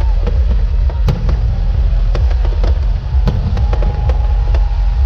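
Aerial fireworks going off in rapid, irregular bangs over a constant deep rumble. A thin steady whistle is held through the second half.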